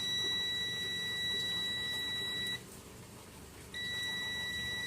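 Multimeter continuity beep: a steady high tone from the test leads on a dryer's thermal sensor, cutting out about two and a half seconds in and sounding again about a second later. The tone shows the sensor now conducts after being smacked with a spoon.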